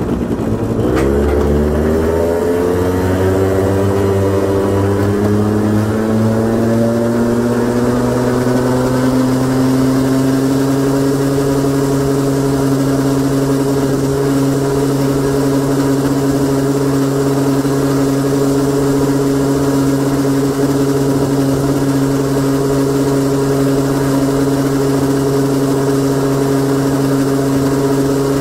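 Honda Gyro X (TD01) 50 cc two-stroke scooter engine under way: it pulls away, its revs rising smoothly over about ten seconds, then holds a steady drone at cruising speed.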